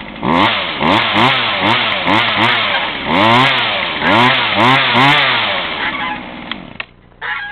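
Sears Craftsman 2.2 two-stroke chainsaw engine revved over and over from idle, about nine quick throttle blips, each pitch rising and falling back. The engine sound then drops away about two seconds before the end.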